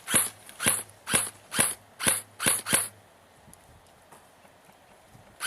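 Airsoft gun fired semi-automatic: seven sharp shots at about two a second, then a pause of a couple of seconds, with another shot at the very end.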